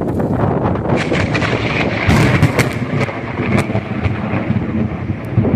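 Thunder from a close lightning strike: a loud rolling rumble with sharp crackles, strongest about two to three and a half seconds in.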